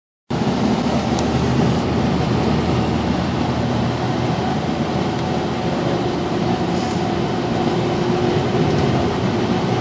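Cabin noise inside a 2012 Gillig Low Floor hybrid bus with a Cummins ISL9 diesel and Allison H 40 EP hybrid drive: steady engine and drivetrain running with road rumble. It cuts in suddenly about a third of a second in.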